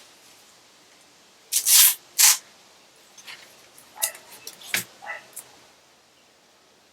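Two short blasts of compressed air from an air blow gun, dusting off sanded logs, about a second and a half in and again just after. A few faint short clicks and brief dog yips follow.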